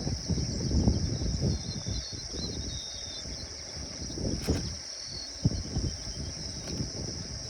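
Insects trilling in a steady high drone, over an uneven low rumbling noise, with faint chirps and a single sharp click about four and a half seconds in.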